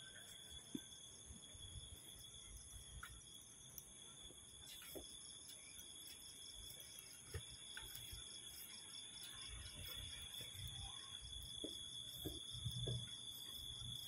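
Faint chorus of crickets and other night insects: several steady high-pitched trills, one of them a fast pulsing trill. Soft footsteps on concrete come through underneath, more often toward the end.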